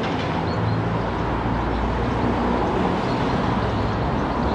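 Steady outdoor noise, an even rushing hiss with a low hum under it, and a few faint bird chirps.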